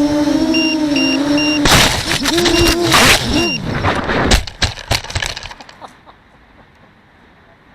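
FPV drone motors whining at a wavering pitch, then about two seconds in the drone hits a tree: a few seconds of crashing and cracking through branches while the motor pitch sags, ending in a few separate knocks before the sound dies away around six seconds in.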